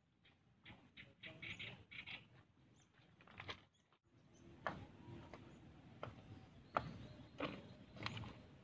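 Footsteps in rubber slide sandals on loose rocks: clacking and scuffing strokes about two-thirds of a second apart, strongest in the second half, with fainter scattered clicks before that.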